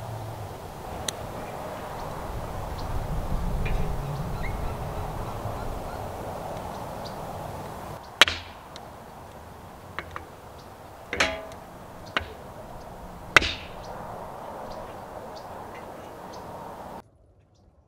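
Campfire burning, with a steady hiss and low rumble, then three sharp cracks a couple of seconds apart among small ticks. The sound drops away abruptly near the end.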